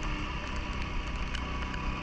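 CFMoto ATV engine running at a steady pitch.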